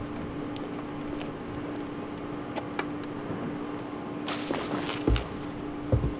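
A steady low hum with a few faint clicks, then a brief rustle and two dull thumps close to the microphone near the end: footsteps on asphalt right beside a camera sitting on the ground.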